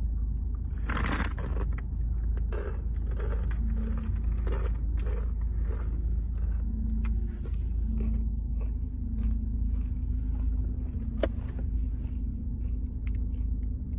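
Crunchy rolled tortilla chips (Blue Heat Takis) being bitten and chewed: a loud crunch about a second in, then crunching chews about twice a second that thin out later. Underneath runs a steady low rumble inside a car.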